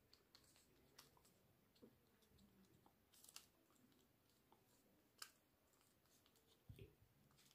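Near silence, with a few faint, scattered clicks from a smartphone and its parts being handled during reassembly.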